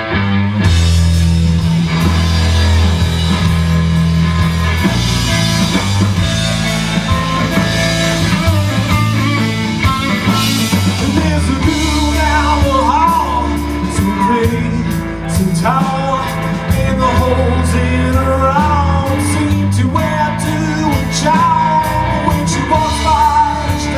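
Live rock band playing the instrumental opening of a song: electric guitar, bass guitar and drum kit, with the bass and drums coming in within the first second. From about halfway through, a lead melody bending in pitch rides over the band.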